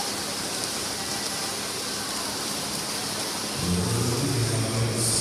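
Steady wash of indoor pool noise during a backstroke race: water splashing from the swimmers mixed with crowd noise. A low steady hum joins about three and a half seconds in and the sound grows a little louder.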